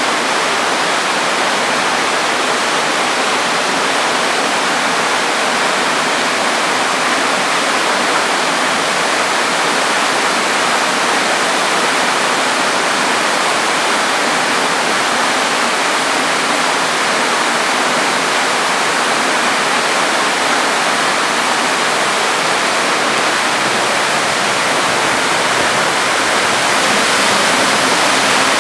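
Kostenets waterfall: water falling and splashing in a steady, loud, even rush.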